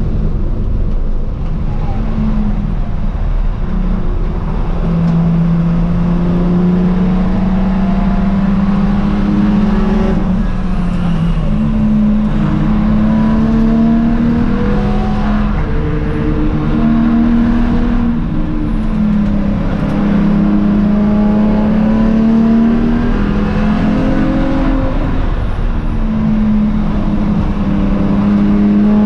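BMW E92 335i race car's N54 twin-turbo inline-six running hard, heard onboard: its note rises under acceleration and drops back with each shift and braking zone, over and over.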